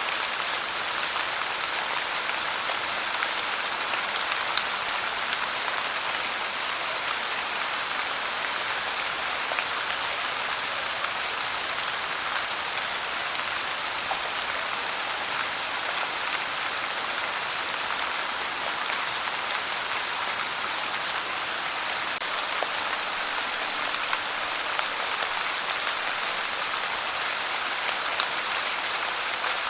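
Steady pouring rain, an even hiss with scattered sharper ticks of drops landing.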